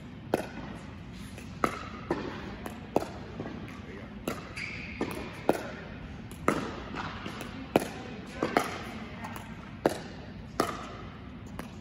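Pickleball backhand dink rally: paddles knocking the hollow plastic ball back and forth, with its bounces on the court, a sharp pop about every second with a short echo.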